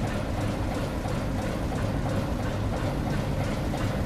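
Railway turntable slowly turning with a steam locomotive aboard: a steady low rumble with a hiss over it.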